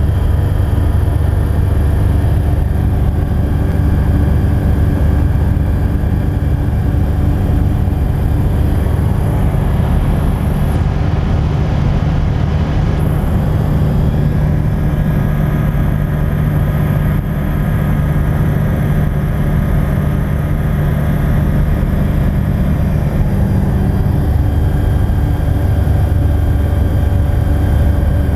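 Steady drone of an EV97 Eurostar microlight's engine and propeller in flight, heard from inside the cockpit.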